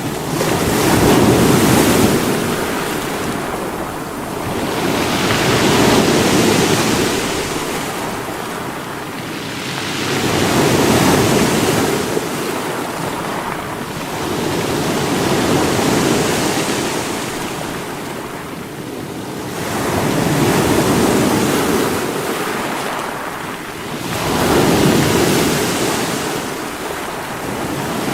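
Sea waves breaking against rocks, surging and easing in a steady rhythm, with a new wave about every four to five seconds.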